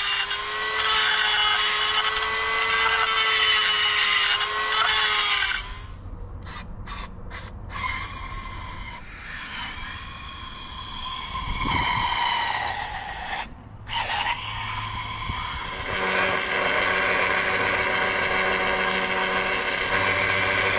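A handheld rotary tool grinding corrosion out of an aluminium outboard powerhead's oil passage: a steady high whine that wavers slightly. An aerosol cleaner hisses in the middle. Near the end comes the steady buzz of TIG welding as the hole is built up with filler.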